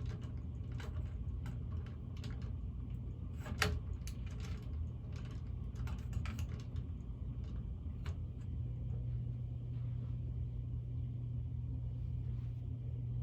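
Cheap ceiling fan's motor humming steadily while loose blades and blade screws click and rattle irregularly, with one sharper click a few seconds in. The hum grows a little stronger past the middle.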